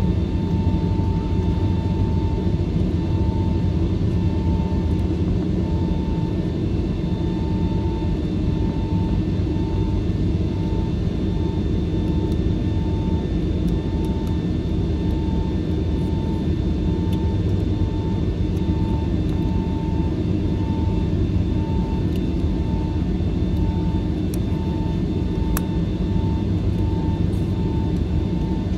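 Cabin noise of a Boeing 757-300 taxiing: a steady low rumble from the engines at taxi power. Over it runs a faint whine that pulses on and off about one and a half times a second.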